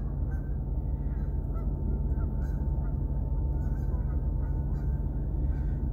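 A steady low rumble with a few faint, scattered honks from geese.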